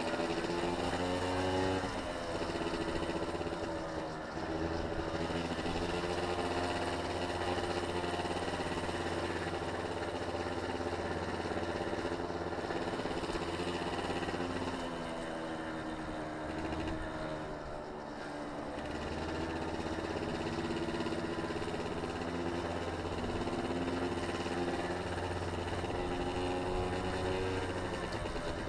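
A small engine running, its pitch slowly rising and falling as the throttle opens and eases off, with road noise underneath. Its low note drops out for a few seconds in the middle.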